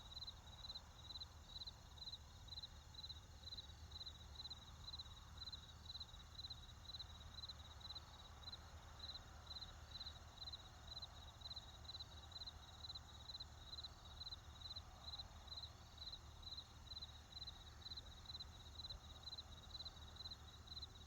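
A cricket chirping faintly in an even, high-pitched rhythm, about two chirps a second, over a low steady rumble.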